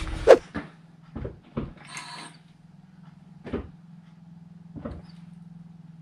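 Scattered clunks and knocks from the car as the brake pedal is pumped to push the caliper pistons back out against the new front pads, over a low steady hum.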